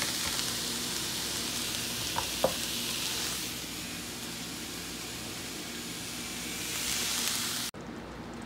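Onion, carrot and sweet pepper sizzling as they fry in oil in a nonstick frying pan, with two light clicks of the plastic spatula against the pan about two seconds in. The sizzle cuts off abruptly near the end.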